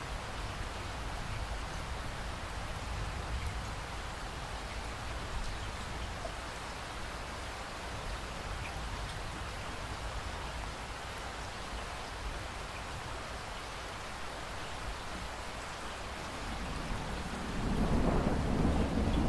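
Steady rain falling, with a low rumble underneath; near the end a louder roll of thunder swells up.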